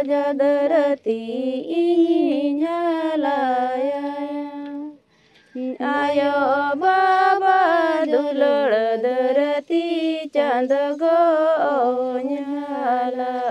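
A woman's voice singing a slow melody in long held, gliding notes, with a short break about five seconds in.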